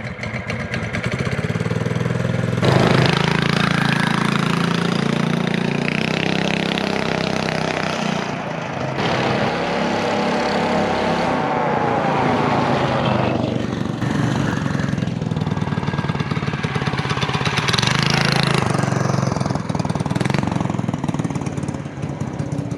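Mini bike's small single-cylinder engine running, revving up and falling back several times.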